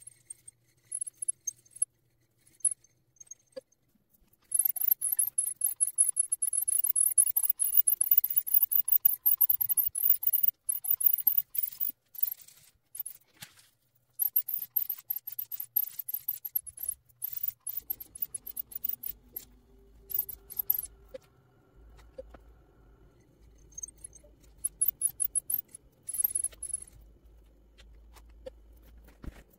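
Rapid crackling and clicking from handling the paper and ink tools. From a little past halfway, a handheld air blower adds a faint low steady hum as it pushes the wet alcohol ink across the paper, with scattered clicks over it.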